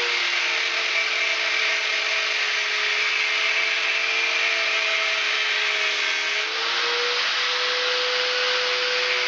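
Power tool cutting through the rusted-solid bolts of an old U-bolt lock bracket: a steady motor whine over a loud grinding hiss, the hiss easing and the whine rising slightly about two-thirds of the way through.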